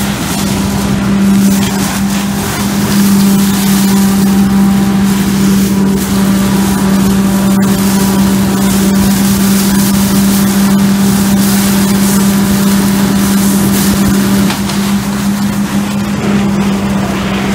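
Truck-mounted leaf vacuum running steadily: its engine and suction fan make a loud, even hum with one strong low tone, over a constant rushing noise.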